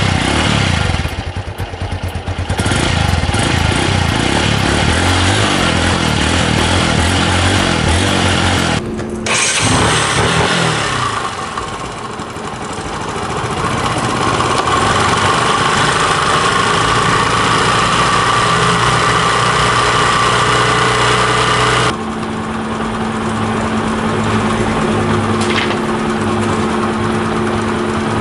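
Small air-cooled single-cylinder motorcycle engines running steadily, heard close up, in separate clips with abrupt cuts about 9 and 22 seconds in.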